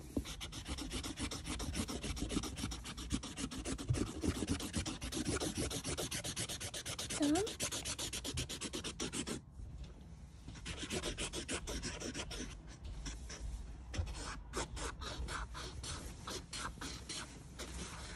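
Felt-tip marker scribbling on paper over a cardboard box: rapid back-and-forth scratchy strokes, with a short pause about halfway.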